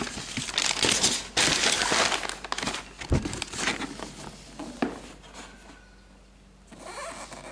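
Rustling, crinkling handling noise for the first few seconds, with a sharp knock about three seconds in, then a few lighter clicks before it quietens.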